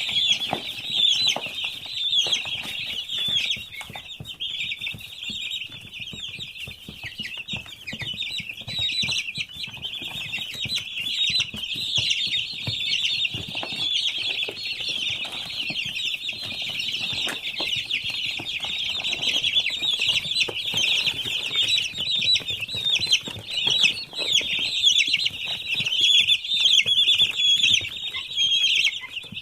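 A large flock of week-old poultry chicks peeping continuously, a dense chorus of overlapping high chirps.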